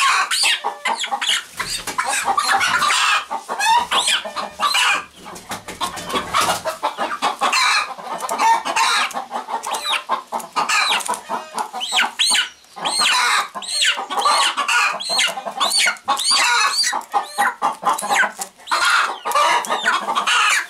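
Chickens clucking and calling almost without pause, many short high calls that rise and fall, overlapping one another.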